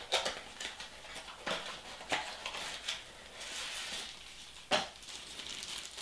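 Small cardboard box opened by hand: flaps and cardboard sliding and tapping in a handful of sharp clicks and scrapes, with light rustling as the wrapped contents are drawn out.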